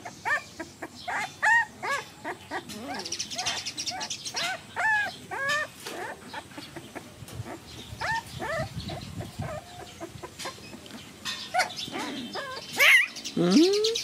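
Young puppies whimpering and yelping in many short, high cries that rise and fall, crowded together in the first half and more scattered later. The man takes them to be hungry and missing their mother.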